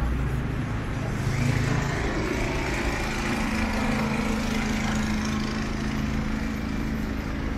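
A motor vehicle engine running steadily close by, a low hum with a hiss that rises about a second in, over street traffic.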